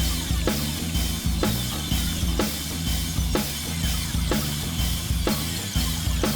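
Background music with a steady drum beat, about two beats a second, over a bass line.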